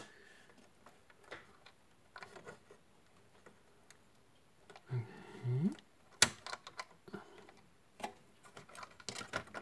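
Scattered small clicks and taps from handling an Intel boxed CPU cooler and twisting its push-pin fasteners, which are stuck. One sharp click about six seconds in is the loudest. A short murmured voice sound comes just before it.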